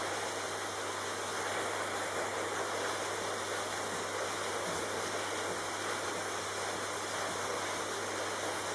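Vacuum cleaner running steadily: a constant rushing hiss over a low hum.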